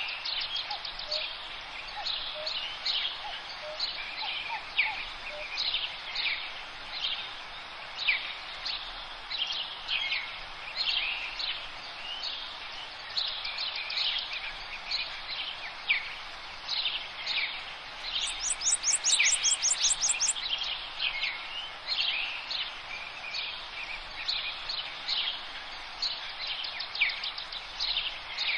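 Several small birds singing and chirping in short repeated phrases, over a steady outdoor hiss. About two-thirds of the way through comes a fast run of high ticks, roughly ten a second for about two seconds, the loudest sound.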